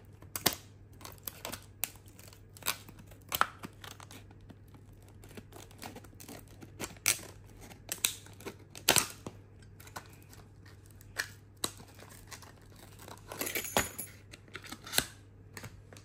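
Scissors cutting through a stiff clear plastic blister pack: a run of sharp, irregular snips, with the plastic crackling between them.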